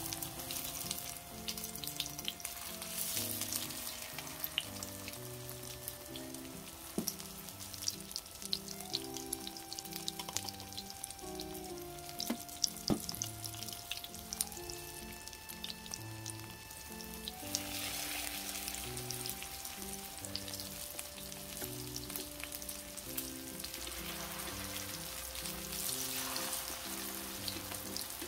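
Battered zucchini slices sizzling in hot oil in a frying pan: a steady hiss with frequent sharp crackles and pops. Soft background music plays underneath.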